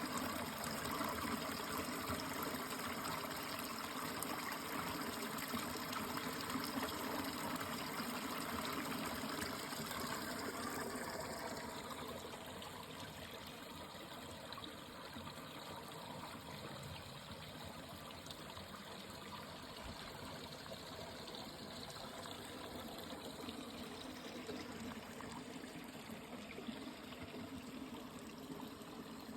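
Running water trickling steadily, like a small stream; it drops a little in level about twelve seconds in and then continues evenly.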